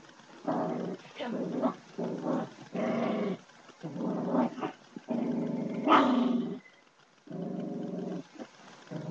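Small long-haired dog growling as a hand reaches at it: a run of warning growls, each half a second to a second long, one near six seconds climbing higher in pitch.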